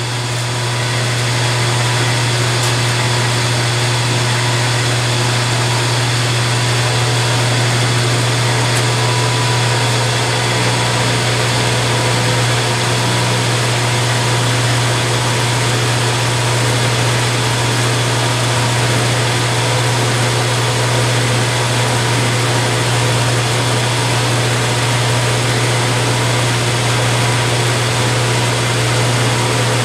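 Vertical milling machine running with its end mill cutting an aluminum block: a steady motor hum with an even hiss of cutting over it.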